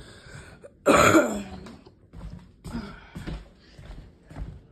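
A person clearing their throat once, loudly, about a second in, followed by fainter shuffling sounds.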